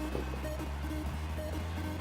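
Background music: electronic track with a steady bass line and short repeating notes.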